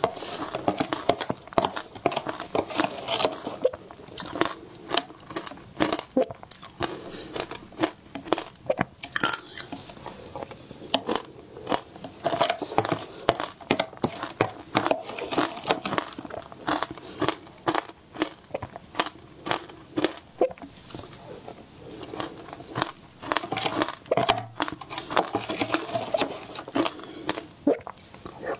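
Close-miked crunching and chewing of mouthfuls of matcha-soaked shaved ice, a dense run of sharp, irregular crunches.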